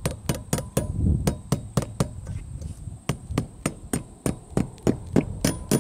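Hammer driving a nail with quick, evenly spaced blows, about four a second.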